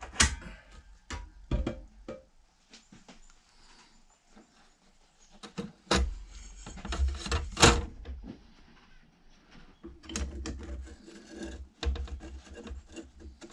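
Scattered metal clinks and knocks as a clutch plate is worked into a C6 transmission clutch drum by hand, the loudest strikes about six and eight seconds in.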